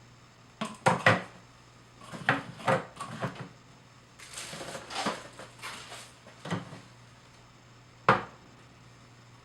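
Plastic blender jar parts and cups being handled on a tabletop. There are clusters of clicks and knocks, a stretch of scraping or rustling around the middle, and a single sharp knock near the end as something is set down.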